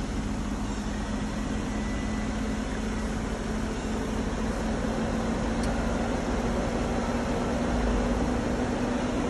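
A steady motor hum with a constant low tone, swelling slightly about eight seconds in.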